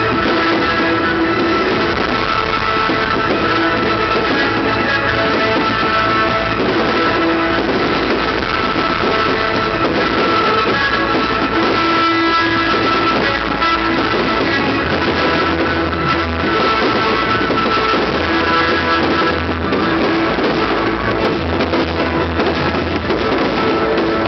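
Loud rock-style music with guitar, the accompanying soundtrack of a fireworks display. A deeper bass comes in about two-thirds of the way through.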